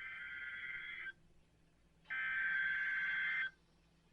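NOAA Weather Radio SAME header bursts: a buzzy digital data tone made of two alternating pitches, sent as repeated bursts of about a second and a half with a second of silence between them. Two bursts are heard, one ending about a second in and the next starting about two seconds in. They encode the start of a new alert, here a severe thunderstorm warning.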